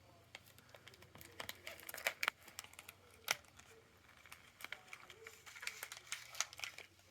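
Gift-wrapping paper crinkling and rustling as it is handled, in irregular sharp crackles, the loudest about three seconds in.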